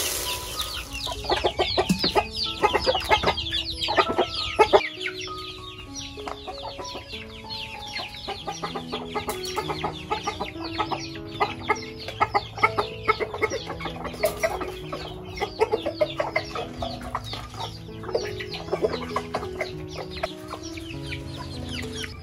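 Chickens clucking and chicks peeping rapidly and continuously around feed, over soft background music.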